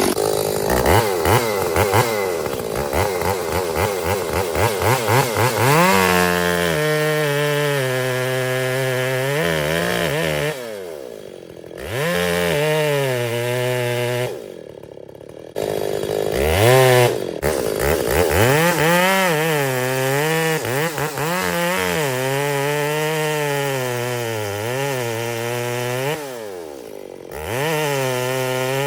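Ported Echo CS-680 two-stroke chainsaw running hard and cutting into a dead pine, its engine pitch sagging under load and climbing again. It drops back to idle briefly three times, near 11, 15 and 27 seconds in.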